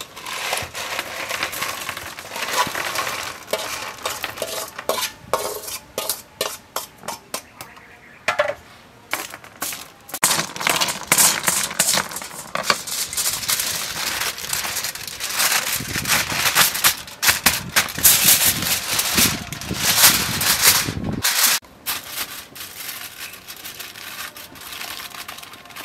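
Blood cockle shells clattering as they are poured from a metal bowl onto aluminium foil and tossed by hand with herbs, with the foil crinkling under them. The rustling is loudest and densest in the middle stretch, with scattered clicks of shell on shell before and after.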